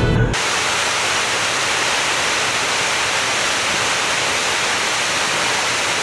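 Steady rushing of water from a small waterfall and its rocky stream, an even hiss that starts abruptly just after the beginning and holds at one level.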